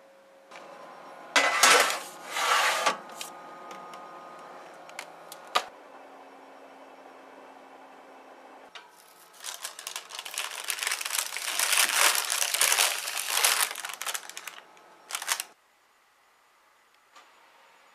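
Kitchen handling noises. Two loud rattling clatters and a sharp click are followed by a steady electric-oven hum for about three seconds. Then come several seconds of dense crinkling and rattling that stops suddenly.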